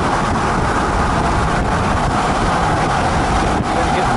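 Steady road and wind noise of a vehicle travelling at highway speed, heard from inside the vehicle.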